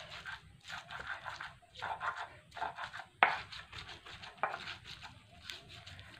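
Garlic, shallots and candlenuts being ground into a spice paste with a stone pestle in a stone mortar (ulekan): irregular scraping and crushing strokes, with two sharper knocks of stone on stone about three seconds in and again a second later.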